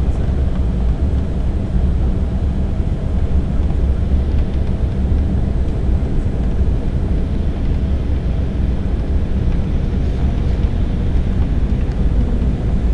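Steady cabin noise inside an Embraer E-190 airliner on approach: the turbofan engines and the rush of air make an even, low rumble with a faint steady hum above it.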